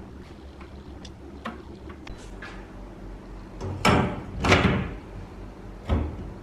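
Handling noises: light clicks, then two loud clattering scrapes about midway and a sharp knock near the end, over a steady low hum.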